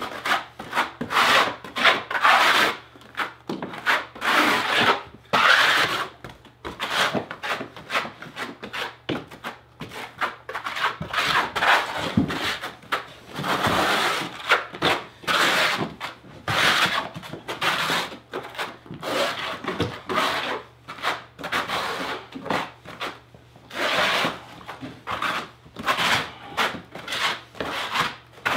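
Steel trowel scraping thin-set mortar over a plywood subfloor in repeated back-and-forth strokes, the flat back of the trowel burning a first thin layer into the wood.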